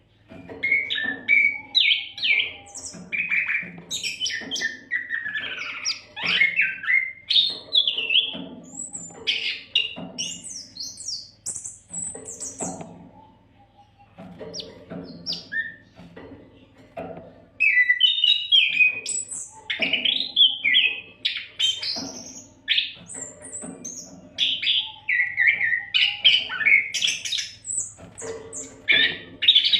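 Oriental magpie-robin (kacer) singing a rapid, varied song of whistled phrases that sweep up and down, nearly without a break, with a short pause about halfway.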